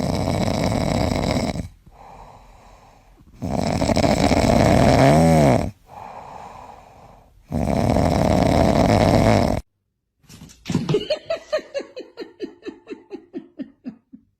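Loud snoring: three long, rasping breaths with quieter gaps between them, the second ending in a brief wheezy whistle. After a break near the ten-second mark comes a quick run of short pitched sounds, about four a second, gradually sliding lower.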